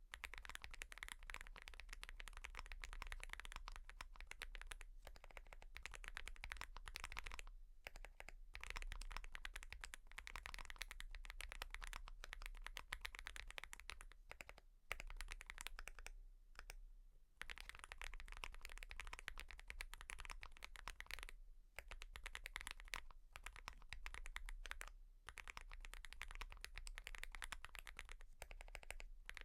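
Fast continuous typing on a mechanical keyboard: a dense run of key clacks that breaks off briefly about a quarter of the way through and again just past halfway, over a faint steady low hum.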